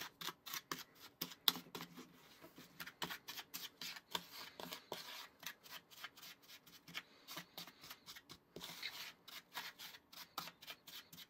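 Wooden spoon stirring dry flour, sugar and cocoa in a plastic mixing bowl: a quick, uneven run of light scrapes and clicks against the bowl, several a second.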